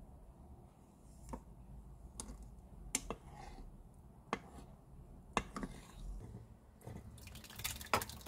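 Wooden spatula stirring thick, well-set homemade yogurt in a rice cooker's inner pot, with soft squishing and a few light knocks of the spatula against the pot. Near the end the yogurt is tipped out of the pot into a cloth-lined strainer.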